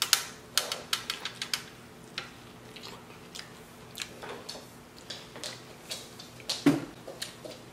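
Close-up chewing and biting of corn on the cob: sharp wet mouth clicks, thickest in the first second and a half, then scattered.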